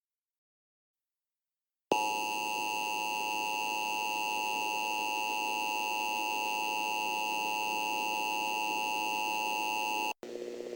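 Emergency Alert System attention signal: the two-tone alarm at 853 and 960 Hz. It starts abruptly after about two seconds of silence, holds steady for about eight seconds, and cuts off sharply just before the end. A fainter steady low drone follows.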